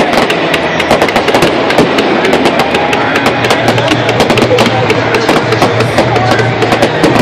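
Fireworks crackling continuously, a dense run of many sharp cracks and pops a second, with music playing underneath.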